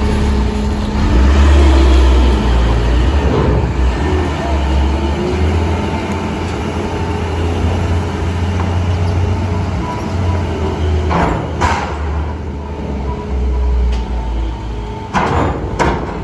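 Heavy vehicle engine running at low revs with a steady deep rumble and hum. Several sharp knocks come about eleven seconds in and again near the end.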